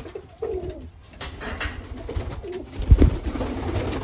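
Domestic pigeons cooing, with a loud low thump about three seconds in.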